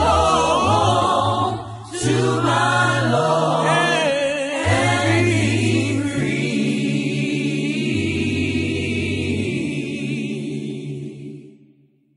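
A choir singing, with held low notes underneath, fading out near the end.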